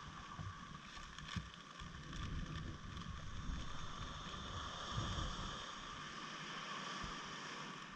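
Wind buffeting the microphone in uneven gusts, over a steady faint hum.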